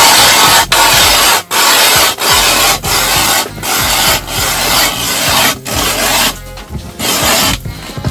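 Ice auger drilling through lake ice: a loud, rough rasping scrape that breaks off briefly about every 0.7 seconds. It turns patchy in the last couple of seconds as the auger is lifted out of the hole.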